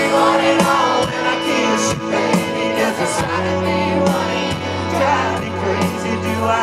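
Live band music through a concert sound system: sustained bass notes, steady drum hits and some singing.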